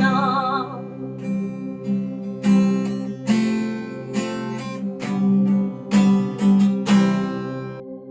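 Acoustic guitar strumming slow chords as background music, the last chord ringing out near the end. A held sung note with vibrato fades away in the first second.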